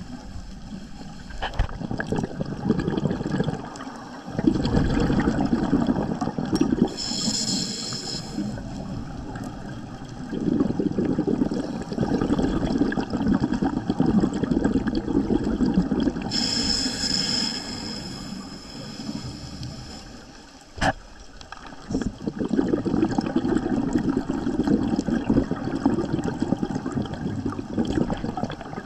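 Scuba diver breathing through a regulator underwater: two short hissing inhalations, each followed by a long, rumbling burst of exhaled bubbles.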